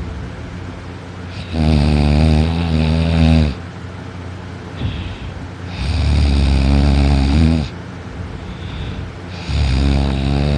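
A person snoring loudly in deep sleep: three long snores, each about two seconds, coming about every four seconds, with quieter breathing between them.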